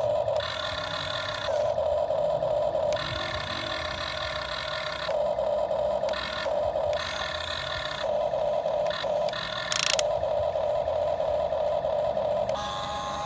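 Radio-controlled excavator's electric motors running with a steady whine, its tone shifting and cutting back every second or two as different functions are worked. A brief sharp noise comes just before ten seconds in.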